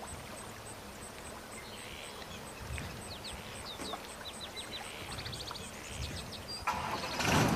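Swamp ambience: short bird chirps and a faint, steady high ticking about four times a second. Near the end a louder rushing noise sets in.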